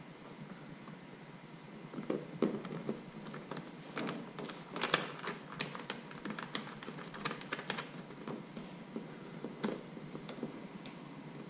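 Irregular small plastic clicks and taps as a 3-pin quick-connect cable plug is handled and fastened into its socket on a plastic battery box, densest in the middle.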